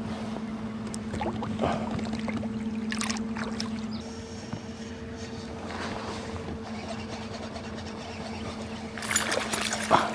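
Water swishing and lapping around a kayak on a river, with a few soft swishes and a louder stretch near the end, over a steady low hum.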